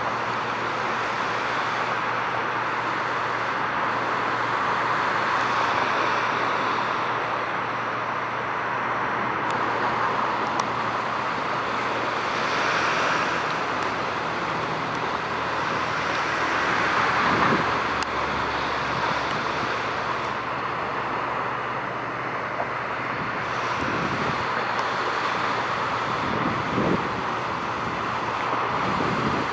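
Steady outdoor background hiss of distant road traffic with wind on the microphone, swelling a little now and then.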